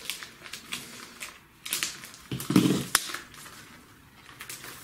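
Plastic comic-book bag and cardboard backing board rustling and crinkling as a comic is slid out of its bag by hand, with one duller, louder sound about halfway through.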